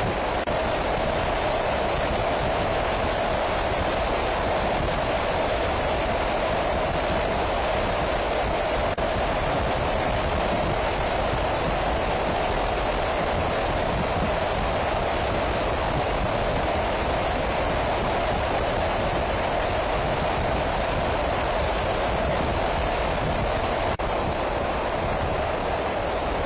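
Steady rush of wind and engine noise in flight, unchanging throughout, with a constant band of hum in the mid range.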